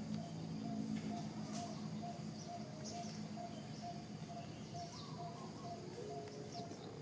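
Birds chirping now and then, with short high chirps over faint background music whose note repeats about twice a second.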